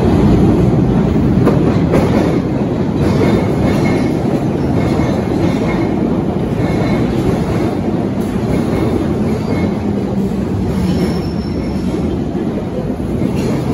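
London Underground tube train running into the platform from the tunnel, its wheels rumbling and clattering over the rails with a thin squeal at times. The sound eases slowly as the train slows.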